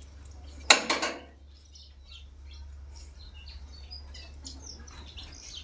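Metal parts of a rice mill polisher being handled as its mesh screen is fitted and tightened: a loud metallic clatter about a second in, then faint scattered clinks and ticks over a steady low hum.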